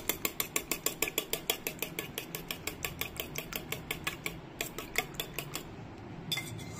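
A fork beating raw eggs in a metal bowl: quick, even clinks of the fork against the bowl, about six a second, stopping near the end.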